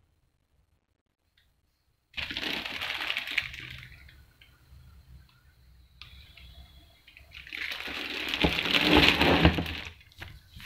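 Plastic packaging bags crinkling and rustling in two bouts: a short one starting suddenly about two seconds in, and a louder, longer one with a few sharp crackles in the second half.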